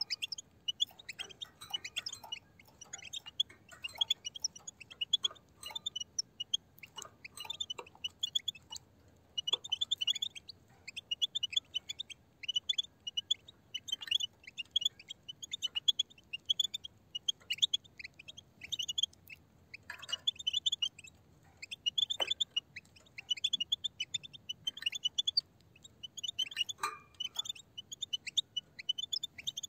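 A flock of European goldfinches twittering: a dense run of short, high chirps with brief pauses, mixed with a few sharper clicks.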